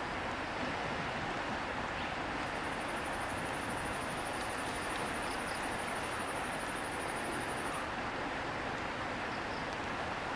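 Steady rush of a shallow river flowing over stones. From about two seconds in to near the end a high, fast-pulsing buzz runs over it.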